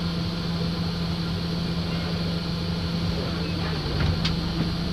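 Wright StreetLite bus running: a steady engine hum over a low rumble, with a sharp click about four seconds in.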